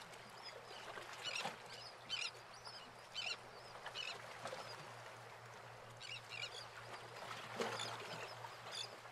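Faint marsh ambience: birds giving short calls every second or so over an even hiss, with a low steady hum underneath.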